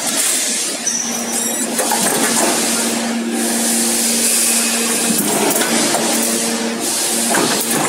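Steady machine hum over a noisy factory background, as from a multi-station hydraulic press and its pump unit running, with a few faint clicks.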